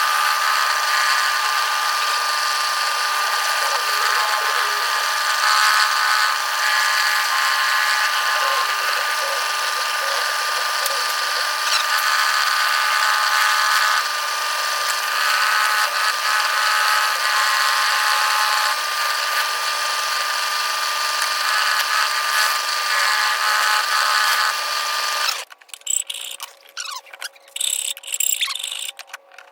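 Drill press running with a sanding drum, sanding out a cut-out until it fits: a loud, steady motor whine with grinding, which stops abruptly about 25 seconds in, followed by light handling noises.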